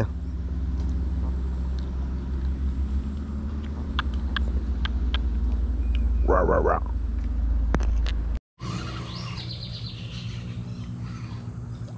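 A steady low rumble on the microphone, with a few sharp clicks and a brief vocal sound. It cuts off suddenly about eight seconds in, and a quieter background with faint high chirps follows.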